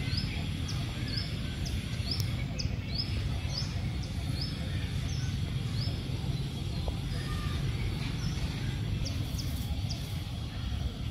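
A bird calling in repeated short, rising, high chirps, about two a second, coming more sparsely in the second half, over a steady low rumble.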